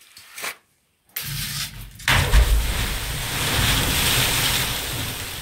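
A heavy object dropped down a flooded mine shaft: a rumble as it starts falling, then, about two seconds in, a big splash into the water some 80 feet below, followed by a long echoing wash of churning water that fades slowly.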